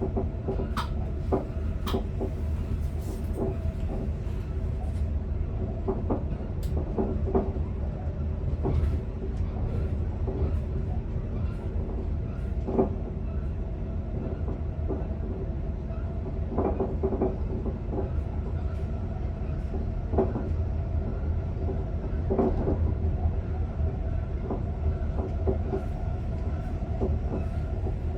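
Electric commuter train running, heard from inside the driver's cab: a steady low rumble with a constant hum, and scattered clicks and knocks from the wheels and cab fittings.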